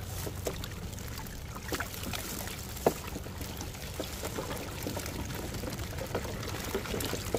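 Water pouring and dripping from a wet cast net full of shad as it is emptied into a plastic bait tank. Small taps run through it, with one sharp click about three seconds in, over a steady low hum.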